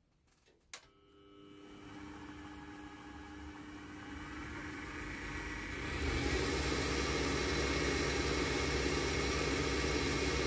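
Draper WTL330A mini wood lathe's 250-watt motor switched on with a click, then running up with a rising whine as the speed is raised, getting louder about six seconds in and then running steadily.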